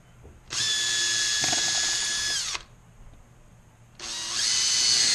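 Cordless drill driving a bit into a wall, two runs of steady high-pitched whine about two seconds each with a short pause between; the bit is biting into a wall stud.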